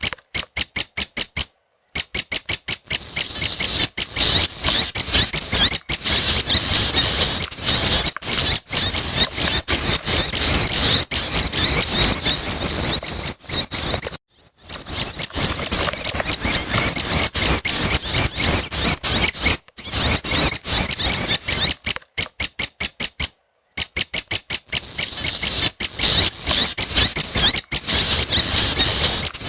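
Young prenjak (prinia) chicks giving rapid, high, squeaky begging chirps in long fast runs, broken by short gaps of silence about 1.5 s, 14 s and 23 s in.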